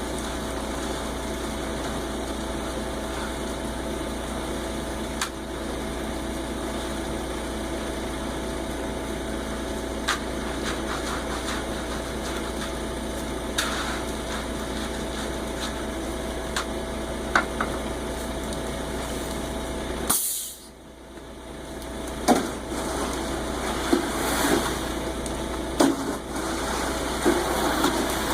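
Concrete mixer truck's engine running steadily, with a few sharp clicks. About twenty seconds in the sound drops away briefly, then returns with scattered knocks and scrapes.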